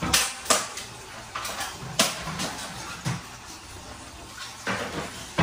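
Kitchen handling clatter: several sharp knocks and taps as vegetables and a cutting board are picked up and set down on the counter.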